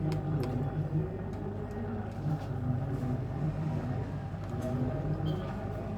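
Steady low hum with faint background voices and a few light clicks.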